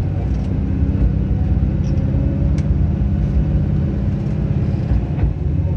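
Diesel railcar's engine running steadily under power as the train pulls away from the station, heard from inside the car.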